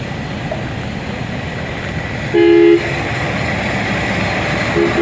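A vehicle horn sounds one loud half-second blast about halfway through, then gives a shorter honk right at the end. Under it runs a steady rumble of truck engines and highway traffic.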